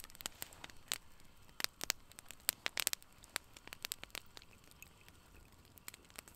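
Campfire crackling, with irregular sharp pops and ticks over a faint hiss.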